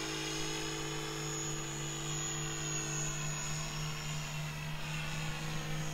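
Steady whine of a small RC P-51 model plane's electric motor and propeller in flight, its pitch drifting a little up and down.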